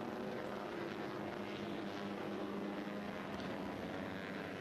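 Moto3 racing motorcycle's 250 cc single-cylinder four-stroke engine running hard on track, a steady engine note that rises and falls slightly.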